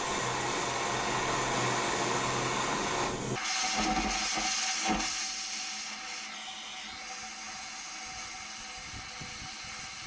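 Handheld gas torch burning with a steady hiss as its flame heats flux on a copper pipe stub for soldering. The sound changes abruptly a third of the way in and grows a little quieter after about six seconds.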